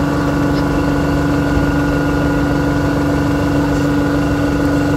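An engine running steadily at an even pitch, with a strong constant hum over a low rumble.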